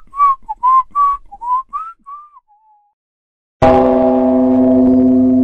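A quick whistled tune of short, sliding notes that fades out, then, about three and a half seconds in, a sudden loud sustained chord that rings on: a short musical jingle.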